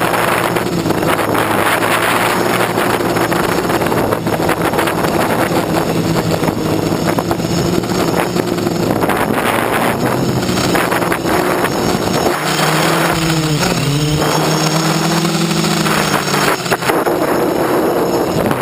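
Gaui 500X quadcopter's electric motors and propellers running in flight, with wind noise on the onboard microphone. About twelve seconds in, the motor pitch dips and then climbs again as the throttle changes.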